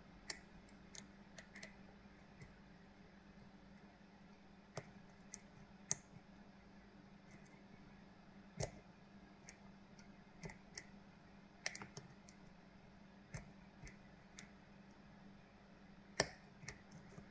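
Faint, irregular small clicks of a lock pick working the pin stacks of a Kale Kilit 164 BNE cylinder lock, pins clicking as they set, over a low steady hum.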